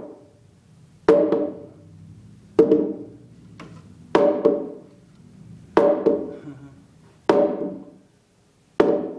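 Mallet blows on a timber, driving a frame joint together: six heavy knocks about one every second and a half, each ringing briefly with a quick rebound tap.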